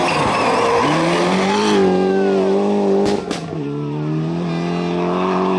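Rally car engine at high revs as the car passes, its pitch climbing about a second in and holding. There are two sharp bangs about three seconds in, and the revs then drop.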